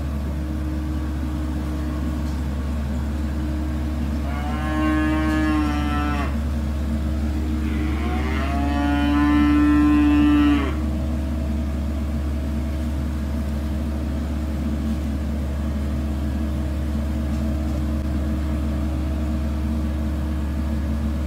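FMWorld rice combine harvester's diesel engine running steadily at a low drone while the machine creeps along. Over it come two long drawn-out pitched calls, about four and eight seconds in; the second lasts over two seconds and is louder.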